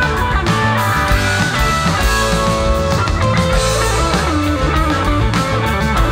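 Live rock band playing an instrumental jam: electric guitar lead with bending, sliding notes over drums, bass guitar and keyboards.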